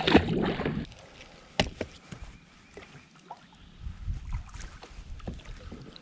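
A released freshwater drum splashing into the river in the first second, followed by light knocks and clicks of gear being handled in a plastic kayak, with one sharp click about one and a half seconds in.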